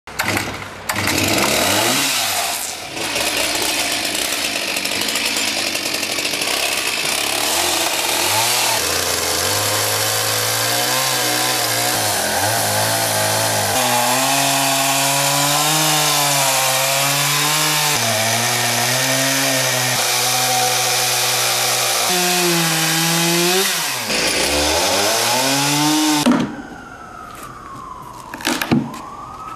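Stihl two-stroke chainsaw cutting into a large log, its engine speed rising and falling under load for most of the time, then stopping suddenly. Near the end a siren rises and falls.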